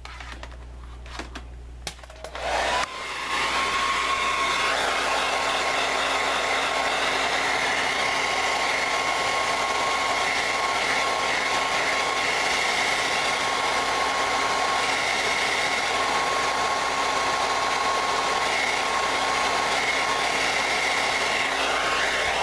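Hand-held hair dryer switched on about three seconds in and blowing steadily, a rush of air with a faint steady whine, drying fresh acrylic paint. It cuts off right at the end. A few light knocks come before it starts.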